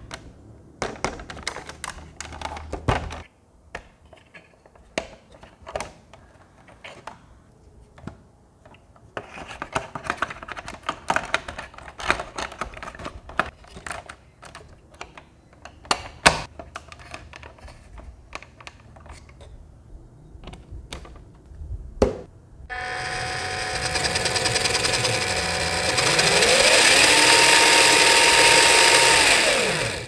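Clicks and rubbing of plastic parts and a rubber tyre being handled, then the RC truck's small electric motor and gear drivetrain running with the wheels spinning in the air: a steady whine that gets louder, rises in pitch, holds, then winds down and stops.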